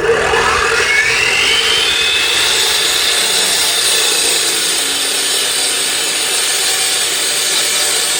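A power saw spinning up with a quickly rising whine, then cutting steadily and loudly through the material.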